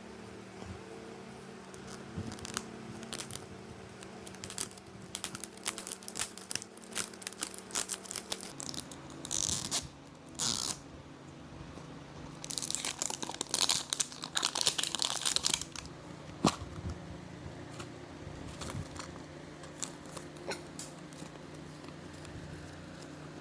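Packaging being handled and opened by hand: plastic and foil crinkling and tearing, with many small clicks and crunches. There is a brief burst of crinkling about nine seconds in and a longer one from about twelve to fifteen seconds, over a faint steady hum.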